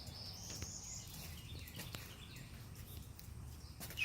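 A bird calling: a high, thin note rising over about the first second, then faint short chirps, over a low steady background rumble.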